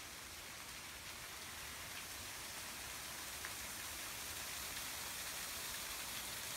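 Spring water running and splashing, a steady hiss that grows gradually louder.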